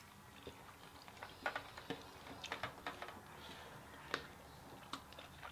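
Quiet eating sounds: scattered small clicks and ticks of boiled lobster being picked apart and chewed, the sharpest about four seconds in.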